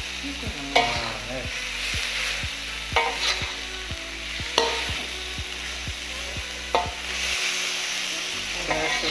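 Shredded chicken and mushrooms sizzling in a hot wok while a metal spatula stirs and scrapes them, with four sharper knocks of the spatula against the pan.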